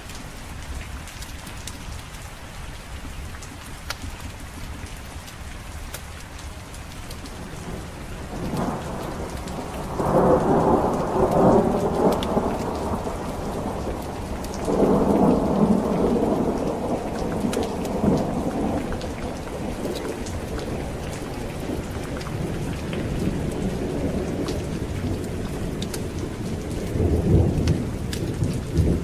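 Steady heavy rain hissing, with rolling thunder that builds about a third of the way in, peaks twice in the middle and rumbles again near the end.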